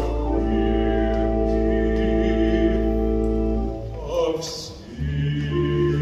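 Baritone voice and pipe organ holding a long final chord over a steady low bass note, which ends almost four seconds in. After a short lull the organ alone begins new sustained chords with a low pedal note about five seconds in.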